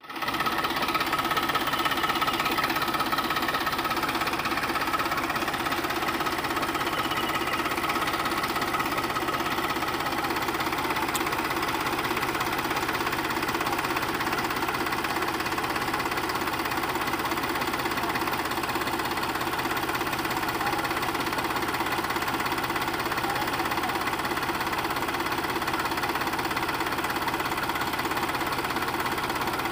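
Sonalika DI 35 tractor's diesel engine running steadily under heavy load, hauling a fully loaded sand trailer up a bank hard enough to lift its front wheels.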